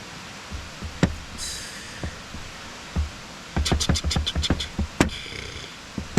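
Chinese cleaver chopping on a cutting board: a single knock about a second in, then a quick run of about nine sharp chops with a slight metallic ring, ending on one harder strike.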